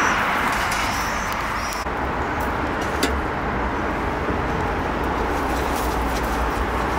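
Hands rubbing a dry salt-and-pepper rub into raw lamb ribs in a stainless steel tray: soft rubbing and rustling over a steady rumble of street traffic. There are a few short high chirps in the first two seconds.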